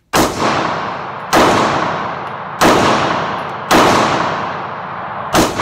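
Five 9mm pistol shots from a Glock 43, fired one-handed at an uneven pace of roughly one a second, each with a long echoing decay off the walls of an indoor range.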